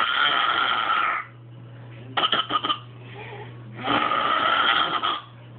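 A toddler grunting, making two long raspy throat grunts of about a second each, with a quick run of short grunts between them about two seconds in.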